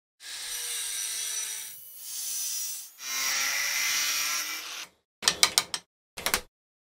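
Angle grinder with a cut-off disc cutting through steel angle clamped in a vise, running in three passes with brief dips about two and three seconds in. After it stops, a few sharp clicks come in two short clusters.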